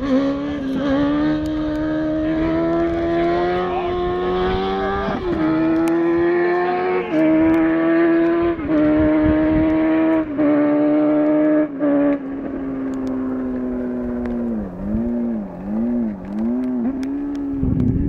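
Motorcycle engine held at high revs during wheelie riding. The throttle is chopped briefly about five times in the middle, and near the end the pitch swings up and down in quick waves as the throttle is worked.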